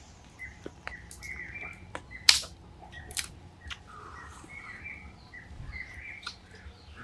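Outdoor birds chirping with short repeated calls, punctuated by a scattering of sharp clicks and knocks; the loudest is a sharp crack a little over two seconds in.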